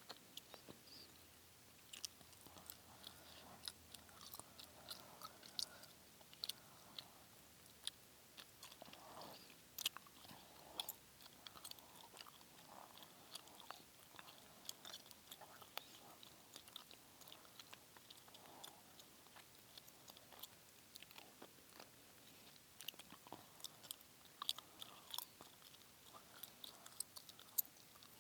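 Close-miked chewing gum: irregular wet clicks and smacks of the mouth, many per second, with soft breathy mouth sounds in between.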